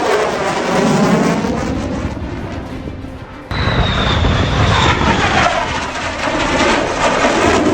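F-35 fighter jet passing low with loud jet engine noise, its sound sweeping in pitch as it goes by. About three and a half seconds in, the sound cuts abruptly to another loud pass with a high whine that falls slightly.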